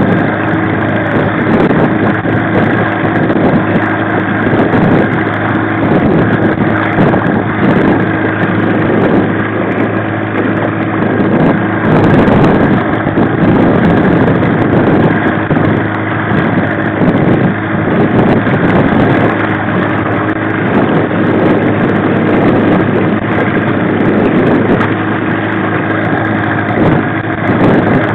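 1995 15 hp Mariner two-stroke outboard running steadily at trolling speed, its even engine tone over a wash of wind noise on the microphone.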